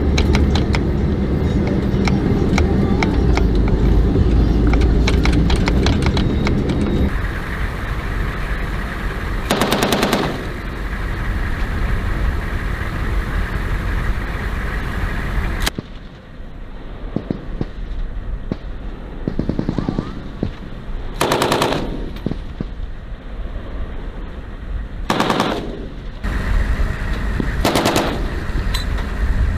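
Automatic fire from Humvee turret-mounted machine guns during live-fire training. At first, rapid shots ring out over a running vehicle engine. After that come several short bursts, each under a second long.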